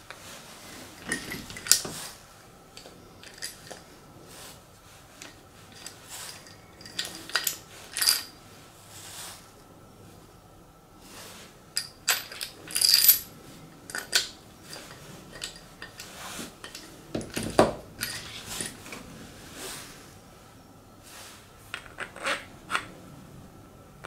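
3D-printed plastic star knobs and wooden knobs with steel bolts being handled: irregular clicks and clatters as they are picked up, knocked together and set down on a tabletop.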